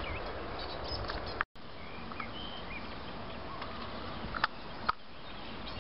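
Outdoor ambience with scattered short bird chirps over a steady background hiss. The sound cuts out completely for a moment about a second and a half in, then carries on with more chirps and two sharp clicks near the end.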